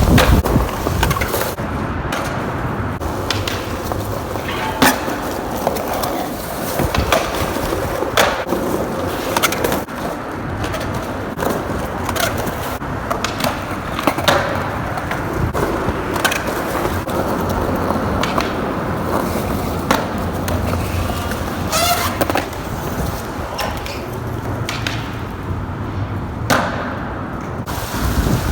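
Skateboard wheels rolling over pavement, with sharp clacks of the board hitting the ground every few seconds. Wind buffets the microphone as a low rumble under the rolling.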